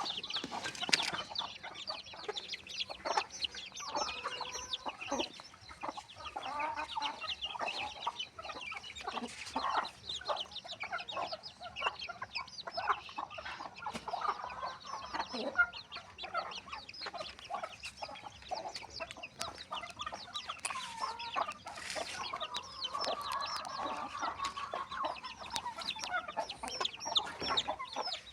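A flock of desi chickens clucking, with many short calls overlapping continuously and a few longer drawn-out calls.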